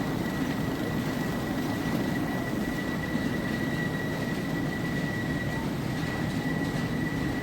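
Potato-handling machinery running steadily: a dense mechanical rumble with a constant high-pitched whine over it.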